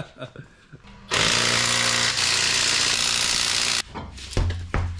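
Impact wrench running in one steady burst of about three seconds, hammering loose a front wheel's lug nuts, then stopping abruptly.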